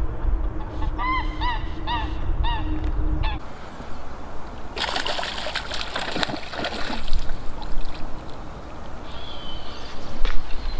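A goose honks several times in quick succession. Then a hooked rainbow trout thrashes and splashes at the surface for a couple of seconds.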